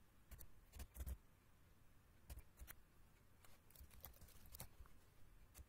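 Faint computer keyboard keystrokes, a scattering of separate, irregular taps over near silence as a name is typed into a card form.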